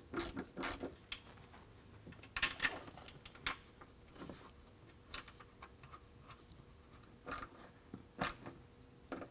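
Scattered light clicks and rustles of gloved hands handling wiring and plastic connectors at a truck's battery, with a faint steady hum underneath.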